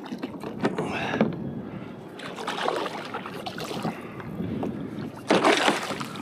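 Water splashing and sloshing against the side of a kayak as a hooked yellowfin tuna thrashes at the surface while being brought alongside, with a louder splash about five seconds in.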